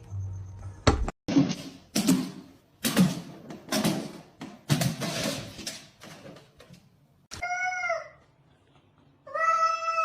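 A series of about six loud thumps or knocks, then a cat meowing twice: a short meow, then a long, drawn-out one near the end.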